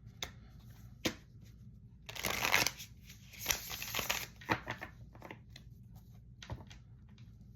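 A deck of tarot cards being shuffled, in two quick rustling bursts about two and three and a half seconds in, with scattered light taps and flicks of cards around them.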